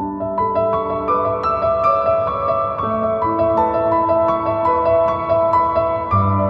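Background music: soft piano playing a flowing melody of single notes over held bass notes.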